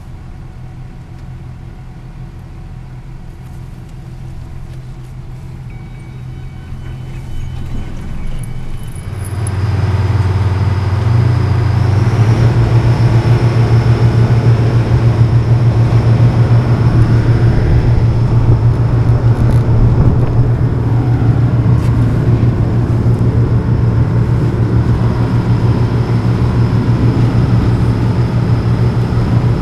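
Car ferry's engine running with a steady low drone, growing much louder about ten seconds in and then holding steady as the ferry gets underway.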